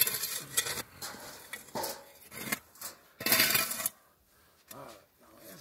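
Steel shovel scooping and tossing loose dirt, the blade scraping through soil and grit in several strokes, the longest and loudest about three seconds in. The soil is being heaped over a smoking pottery firing mound.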